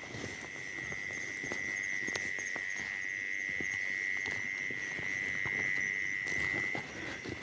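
An insect's steady, high-pitched trill that stops shortly before the end, over light footsteps and rustling in vegetation.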